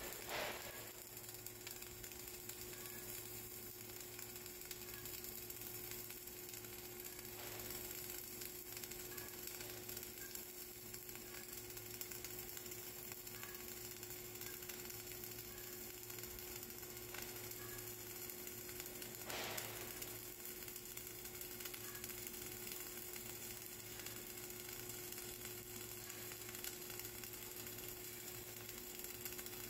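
Flux-cored arc welding on a vertical butt joint: the arc crackles and sizzles steadily as the wire feeds, with one louder crack about two-thirds of the way through.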